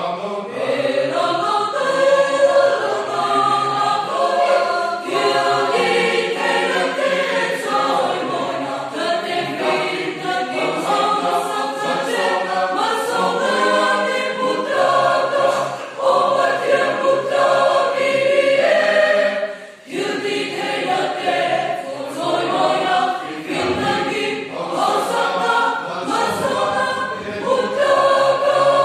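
Church choir of young men and women singing a sacred choral song in parts, breaking off briefly between phrases twice.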